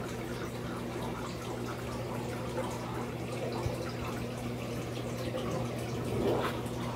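Planted aquarium's water circulation: a constant light trickling and dripping over a steady low hum, like a running filter or pump. The trickling swells briefly about six seconds in.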